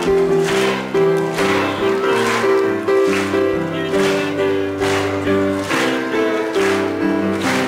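Music with a steady beat and a melody of short, quickly changing notes.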